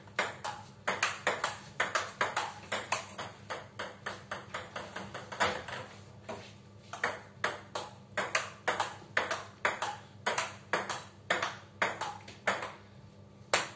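Table tennis ball being struck back and forth in a practice rally, sharp clicks of ball on bat and table at about three to four a second, with two short breaks, one about halfway and one near the end.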